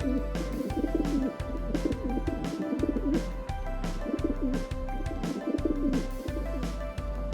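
Background music with a steady beat and a low, wavering melody.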